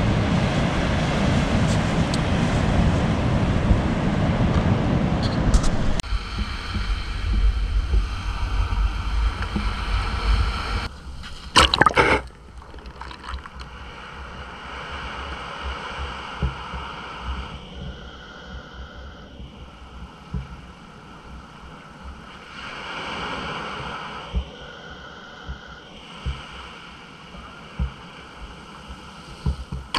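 Sea surf washing on a beach, with heavy wind noise on the microphone for the first few seconds. A loud knock comes about twelve seconds in.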